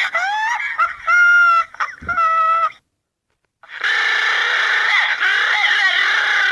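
Rooster crowing in a few long, pitched calls that bend up and down, ending nearly 3 seconds in. After a short silence, a louder, denser stretch of many overlapping calls and noise begins.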